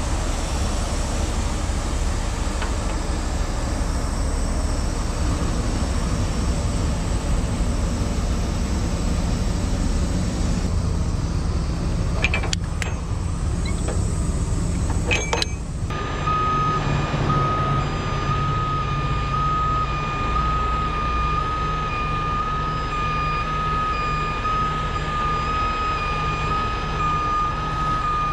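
Heavy tow truck's diesel engine running steadily, with a couple of sharp clicks around the middle. About halfway through, a truck's backup alarm starts beeping at a regular pace.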